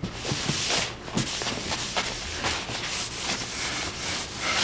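Paste wax being rubbed over a shellac-finished wooden frame with a nylon pad and a shop towel: a steady run of quick scrubbing and wiping strokes.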